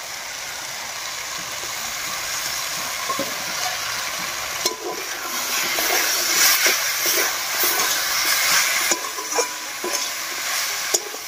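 Vegetable filling sizzling in a hot karahi as fried green peas go in, then stirred with a metal spatula. The sizzle grows louder about halfway through, with the spatula scraping and clicking against the pan.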